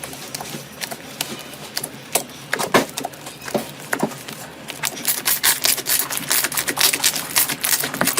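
Slime squeezed and pressed by hand, giving irregular sticky clicks and crackling pops that turn into a dense, fast crackle from about five seconds in.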